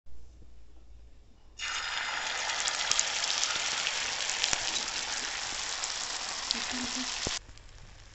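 Egg batter with chopped vegetables sizzling in hot oil in a black iron pan as it is poured in and fries. A steady hiss sets in suddenly about a second and a half in and cuts off suddenly near the end.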